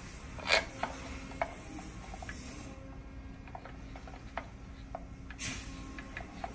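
Small hand tools on the pump housing bolts of a Keene P90 pump: light metallic clicks and taps as the housing is tightened up, with one sharper click about half a second in.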